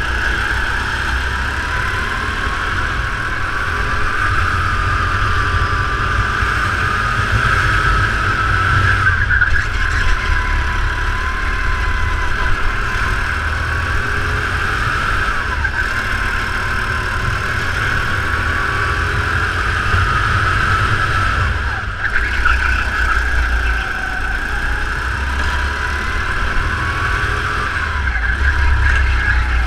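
Go-kart heard from onboard at race pace, its pitch rising and falling with speed through the corners and straights, over a low rumble of vibration and wind.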